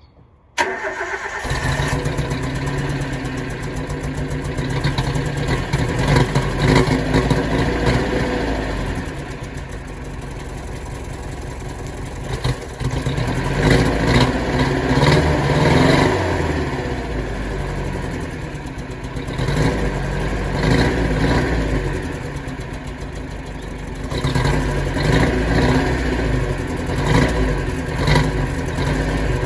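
Nissan Skyline R31's CA18S 1.8-litre four-cylinder engine cranking and catching about half a second in, then running with its speed rising and falling several times. It runs unevenly at first, having sat unused for about five days, just after new spark plugs and a new air filter.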